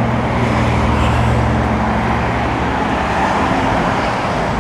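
Steady motor-traffic noise: a continuous engine rumble with a low hum over a broad hiss, unchanging throughout.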